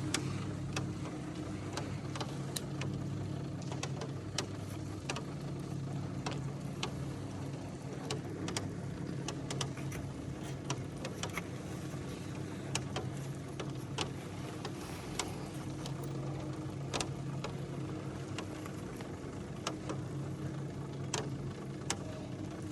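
The open cable lift's hoist motor running steadily as the platform is lowered into the volcano's chamber: a low mechanical hum that wavers slightly. Irregular sharp clicks and ticks sound over it.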